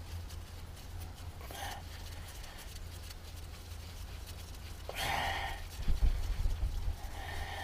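A person breathing out hard in short breaths three times while straining to undo the starter motor's bolts from under the vehicle, with a few low knocks about six seconds in, over a steady low hum.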